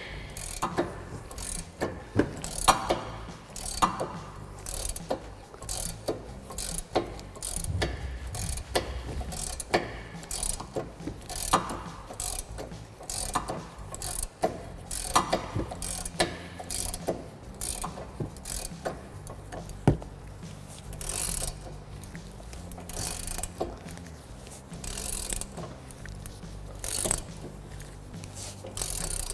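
Hand ratchet clicking in repeated strokes as it backs out a front brake caliper bracket bolt.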